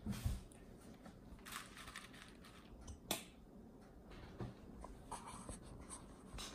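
Faint clicks and rustles of a child's fingers picking blueberries and cereal out of a plastic plate as she eats, with one sharper click about three seconds in.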